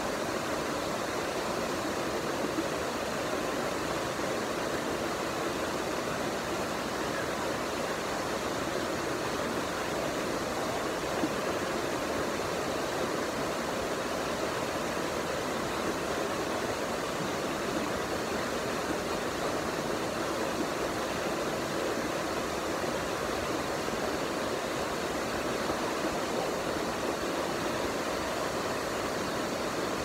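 Steady rush of water cascading over boulders down a shallow rocky waterfall stream.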